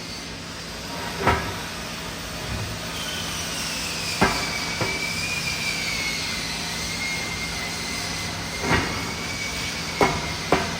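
Sharp metal-on-metal knocks on a steel tank, about six at irregular intervals, each ringing briefly, over a steady background noise with a thin whine that slowly slides down in pitch.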